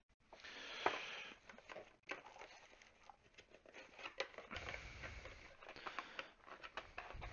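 Plastic packaging rustling and a cardboard box being handled as power-supply cables are pushed into it: an irregular run of faint rustles, small clicks and knocks.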